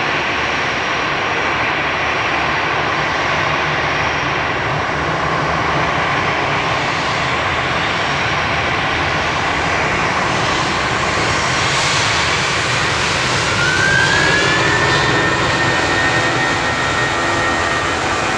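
Jet engines of a taxiing Airbus A340-300, its four CFM56 turbofans at low power: a steady whine and rumble. About two-thirds of the way in, a higher whine rises in pitch, holds, and stops shortly before the end.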